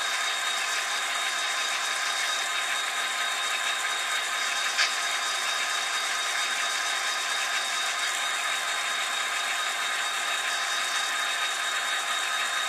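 HO scale model train running on the layout: a steady mechanical whirr and rattle at an even level, with a thin high whine throughout and a single click about five seconds in.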